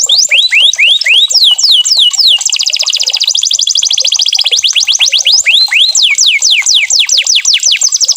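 Canary singing: a run of quick, high whistled notes that each slide downward, repeated several times a second, switching about a third of the way in to a very fast, even trill and then back to the sliding notes.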